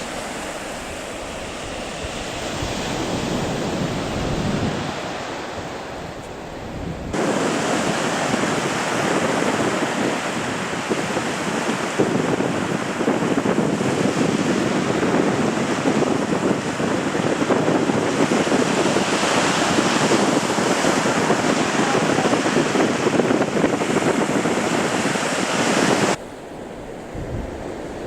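Sea surf washing on the shore, with wind buffeting the microphone. About seven seconds in the sound jumps abruptly to a louder, fuller wash, and it drops back suddenly near the end.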